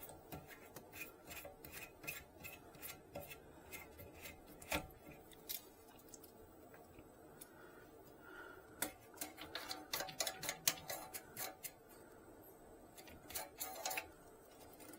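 Faint, irregular clicks, ticks and light scraping of hands and a tool working the toilet's water supply line connection loose, with busier bursts of clicking about nine to eleven seconds in and again near the end.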